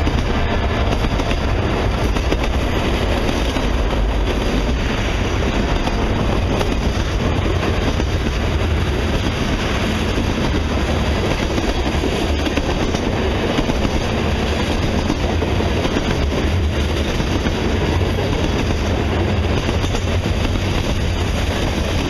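Freight cars of a passing mixed freight train (gondolas, covered hoppers and boxcars) rolling by on steel rails: a steady, loud rumble of wheels on track that does not let up.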